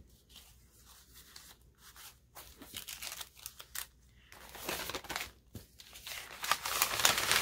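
Paper rustling and crinkling as a kraft paper bag, a glassine envelope and paper tickets are handled. It is faint and sparse at first, then grows louder and busier over the last few seconds.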